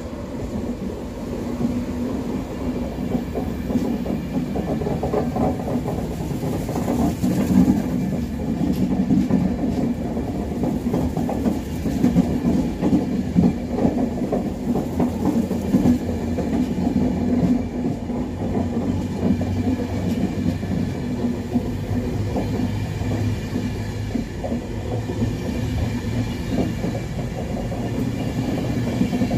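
A train of LNER Mark 4 passenger coaches rolling slowly past along the platform: a steady rumble of wheels on the rails, with irregular clicks and clacks from the wheels over the track.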